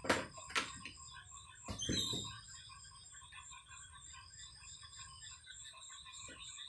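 Steady background chorus of insects chirping, several rapid pulsing calls at different pitches at once. A few sharp knocks and a duller thud come in the first two seconds.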